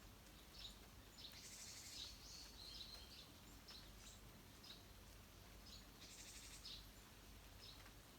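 Faint small wild birds chirping: scattered short high call notes, with two brief rapid twittering phrases, one about a second and a half in and one about six seconds in.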